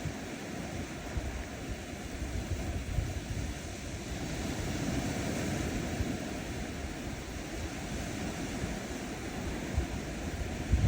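Small ocean waves washing onto a sandy shore: a continuous hiss of surf that swells a little about four to six seconds in, with wind rumbling on the microphone now and then.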